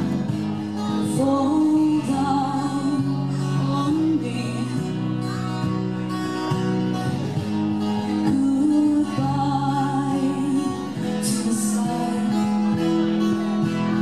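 Live song: strummed acoustic guitar with a woman singing, her voice wavering on held notes.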